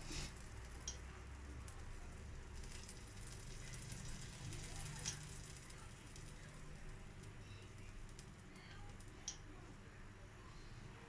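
Pancake batter sizzling faintly in a buttered frying pan, a fine steady crackle, with three light clicks about a second in, around the middle and near the end.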